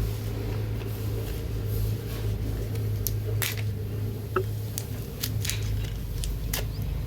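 Light clicks and taps of small parts being handled while fitting new carbon brushes into the drill's brush holders, scattered irregularly through the second half, over a steady low hum.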